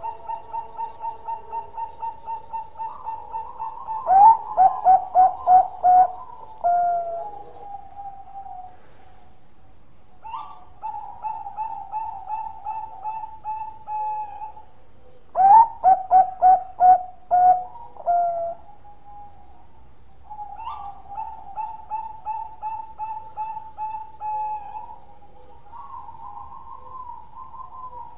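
Caged zebra dove (a Bangkok-type perkutut) singing its cooing song. Each phrase starts as a quick run of soft staccato coos and builds into about six loud coo notes with a lower drawn-out final note. The phrase comes twice in full, and a third run of soft coos trails off near the end.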